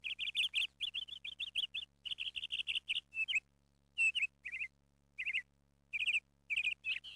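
A small bird chirping in quick runs of sharp, high notes, then in shorter separate bursts with pauses from about three seconds in.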